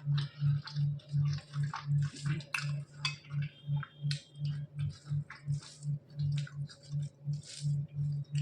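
Close-up eating sounds: wet chewing, smacking and squishing of rice, dal and curry, in short irregular bursts, over a low hum that pulses about three times a second.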